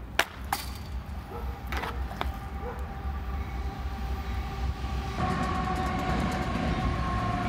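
A hockey stick cracks sharply against a ball on asphalt near the start, with a second crack just after and a couple of lighter knocks. A freight train hauled by diesel locomotives rumbles past, growing louder about five seconds in, with steady tones over the rumble.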